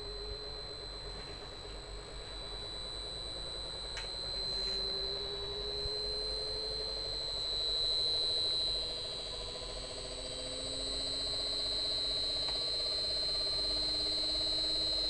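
Inverter air-conditioner drive board running a rotary compressor on the bench: a steady high-pitched switching whine, with lower motor tones that slowly rise in pitch as the motor speeds up. Two faint clicks come about four seconds in.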